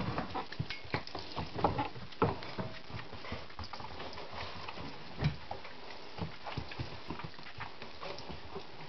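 A dog's claws and paws clicking and pattering irregularly on a wooden parquet floor as it moves about, with a louder thump about five seconds in.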